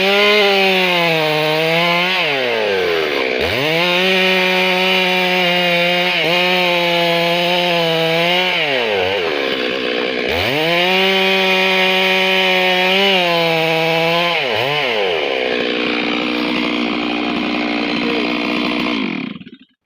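Stihl MS 382 two-stroke chainsaw running at high revs. Three times the revs drop sharply and climb back as the throttle is released and reopened. Near the end it runs more evenly, then the sound cuts off abruptly.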